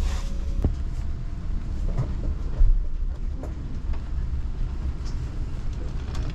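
Steady low rumble of the Kintetsu Hinotori limited express train heard from inside the passenger cabin, with a few light knocks and a louder thump about two and a half seconds in.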